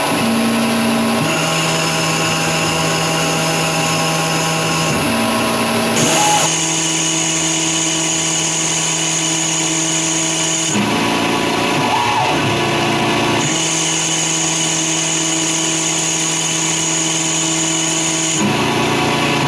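Grizzly G0602 CNC lathe turning an aluminum tube: a steady machine whine whose pitch pattern switches every few seconds, with a brief glide in pitch at each change, repeating about every six seconds as the tool steps through its cutting passes.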